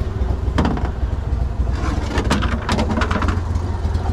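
Boat motor idling with a steady low rumble, and a cluster of knocks and rattles on the boat's deck, one about half a second in and several more in the middle.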